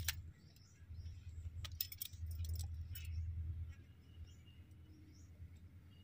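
Several sharp clicks and snips from hand-held hoof shears trimming a sheep's overgrown hoof, over a low rumble.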